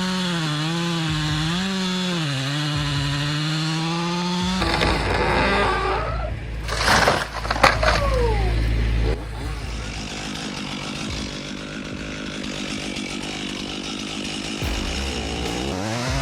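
Chainsaw running, its engine note wavering up and down with the throttle for the first few seconds, then a rougher, noisier stretch of cutting into wood. There is a loud burst of noise around seven seconds in, then steadier, quieter running.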